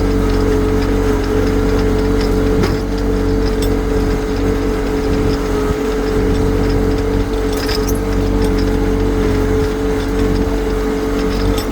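Yanmar compact tractor's diesel engine running steadily at a constant speed.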